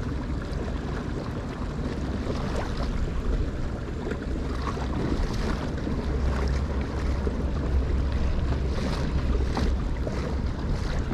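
Wind buffeting the microphone over water washing and splashing along the hull of a moving kayak, with a steady low rumble that grows louder midway and brief splashy hisses near the end.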